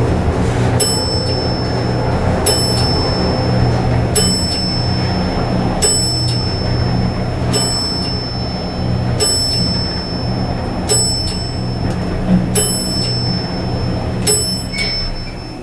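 Elevator car travelling with a steady low hum while a high electronic chime dings nine times at even intervals, about every 1.7 seconds. The hum drops off near the end as the car comes to a stop.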